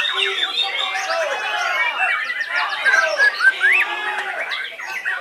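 Many white-rumped shamas singing over one another in a dense, unbroken chorus of whistles, sweeps and fast trills.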